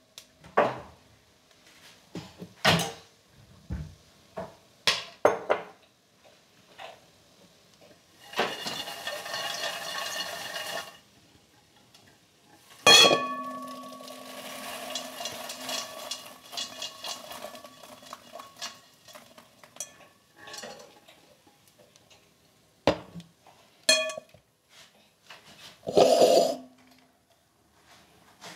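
Stainless steel pot handled with clinks and knocks as popped popcorn is poured from it into a glass bowl, the popcorn rustling as it slides out. Midway comes one loud knock that rings on, and near the end another heavy knock as the pot is set down.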